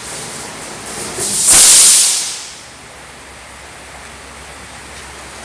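Steel reinforcing bars scraping and sliding over paved ground as they are dragged off a truck: one loud rush of metal-on-stone scraping lasting about a second, starting about a second in, with a sharp knock at its start.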